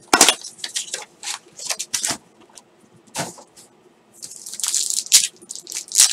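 Crisp crackles and rustles of a cardboard card box and its wrapped packs being handled and set down. From about four seconds in there is a longer crinkling as a foil trading-card pack is torn open.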